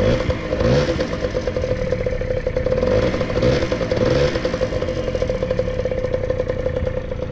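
Honda Dio two-stroke scooter engine running through a Coca-Cola can fitted over the exhaust outlet, a home-made trick to make it sound like a motorcycle. It is revved up and down a few times in the first half, then settles to a steady run.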